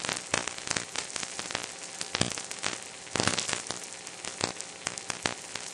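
Steady hiss with dense, irregular crackles and pops, like static or surface noise.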